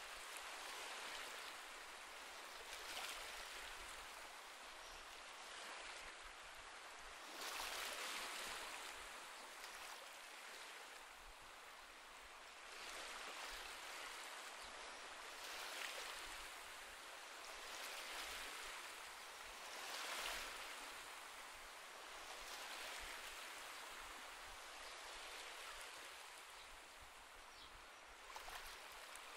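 Faint sea waves washing on a shore: a steady hiss that swells and fades every few seconds.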